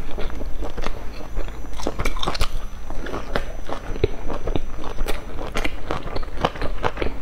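Close-miked chewing and biting of a pan-fried bun with a golden fried crust. The chewing is a dense, irregular run of small sharp clicks and crunches.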